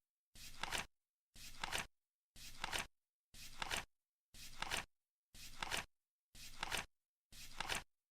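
Flip clock flipping once a second, eight times: each flip a short rustling swish that ends in a sharp double click.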